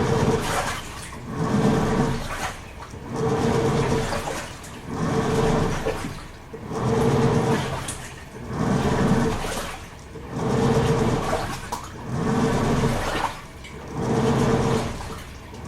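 Toshiba AW-42SEE4 top-loading washing machine agitating its wash water. The pulsator turns in strokes about every one and a half seconds, and each stroke is a swell of sloshing water with the motor's hum, followed by a brief dip as it reverses.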